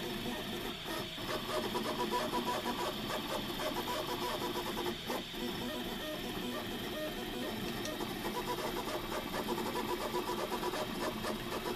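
Bob's CNC 3D printer printing, its stepper motors driving the print head and bed. They make a whine of several tones that pulses and shifts in pitch as the head changes direction.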